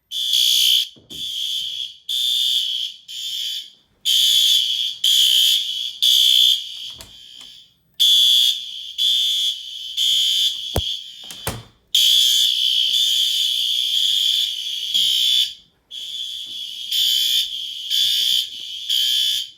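System Sensor fire alarm horns sounding in alarm: a loud, high electronic horn tone pulsing on and off about once a second, the pulses from several horns at times running together into longer blasts. Two sharp clicks about eleven seconds in.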